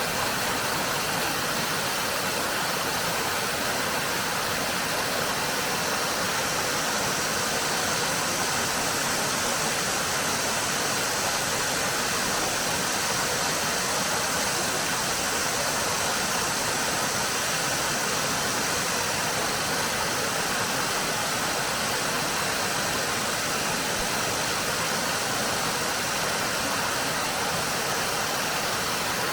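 Mountain stream water rushing and splashing over rocks in a steady, unbroken hiss.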